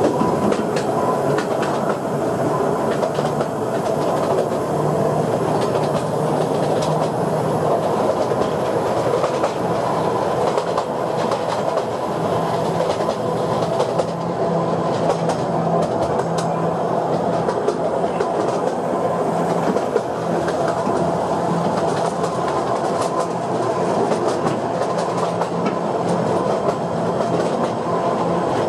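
Narrow-gauge passenger train running, heard from an open-sided car: a steady rumble and rattle of wheels on the rails, with frequent clicks over rail joints and a low humming tone that comes and goes.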